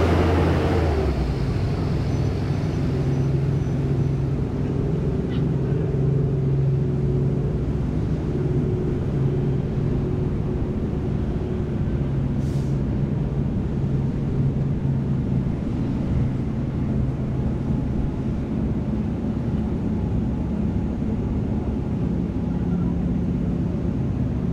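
Large passenger ferry's machinery running: a steady low rumble with a low hum. A louder noise fades away in the first second, and there is one faint brief click about halfway through.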